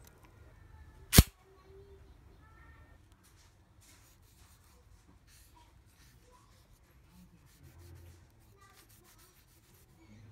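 A single sharp metallic click about a second in as the blade is pushed home into the chuck of a Stanley Yankee 135A ratchet screwdriver. Faint small clicks and rubbing follow as the tool is handled and its wooden handle is waxed with a pad.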